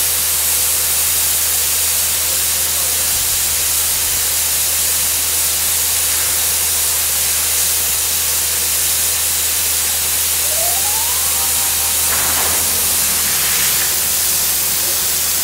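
Borewell being flushed with a high-power air compressor: compressed air blasting muddy water and silt up out of the casing pipe in a steady, loud hiss and spray, with a low steady hum underneath.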